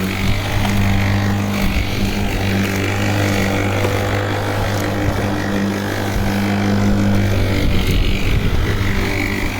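WORX 40 cm cordless battery lawnmower running while cutting grass, its electric motor and blade giving a steady hum that roughens briefly under load about two-thirds of the way through.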